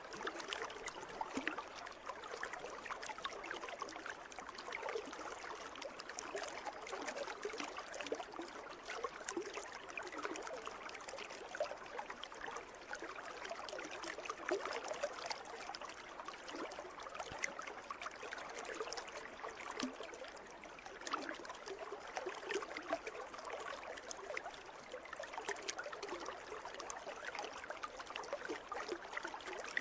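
Water in a pool lapping and trickling steadily, with a constant patter of small splashes.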